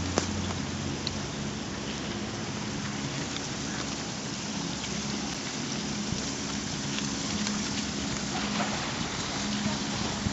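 Steady rain falling, with scattered drops ticking against a surface and a faint low hum underneath.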